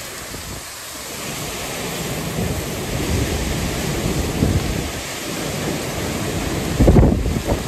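Hurricane winds driving torrential rain, gusts buffeting the microphone with low rumbling surges. The gusts build through the middle, and the strongest comes about seven seconds in.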